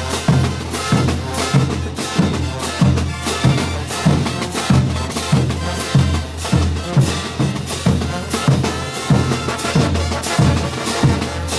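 Bolivian brass band playing: sustained brass melody over a steady beat of bass drum, snare and cymbals.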